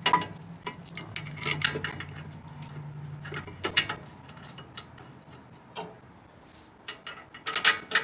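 Metal clinks, taps and clicks of a steel brake caliper bracket being fitted against the rotor and its two mounting bolts being started by hand, with a denser cluster of clicks near the end.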